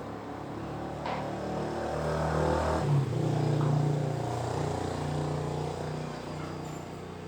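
An engine running with a steady low hum. It grows louder over the first few seconds and then eases off, with a couple of sharp knocks about one and three seconds in.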